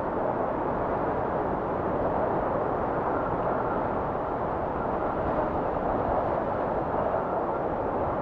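Wind blowing steadily, an even rushing noise without gusts or breaks.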